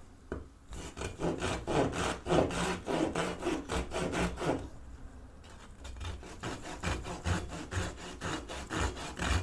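A 6-inch Japanese-style flush-cut pull saw cutting through a small wooden dowel in quick, rasping strokes, with a short pause around the middle. The fine teeth bite readily, the blade plenty sharp.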